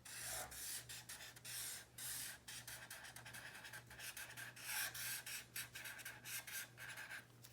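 A drawing tool scratching across paper in many short, quick strokes, as rows of grass lines are drawn, over a faint steady hum.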